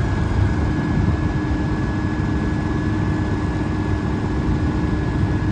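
A steady mechanical running noise with a low rumble and a constant hum, like an engine or motor running without change.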